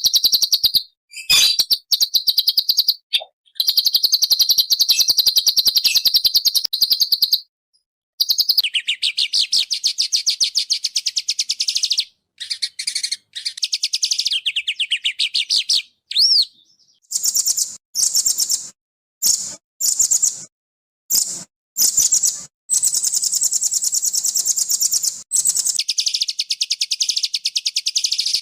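Small songbirds singing fast, dense high-pitched trills and rattling runs of rapid repeated notes, in phrases of one to four seconds that stop abruptly between them.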